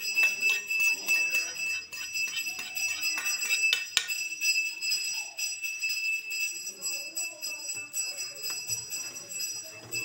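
Steel spoon scraping and clinking against a metal pan as a ghee tempering is scraped out and stirred into rava pongal. A steady high-pitched ringing tone runs underneath, with a sharp clink about four seconds in.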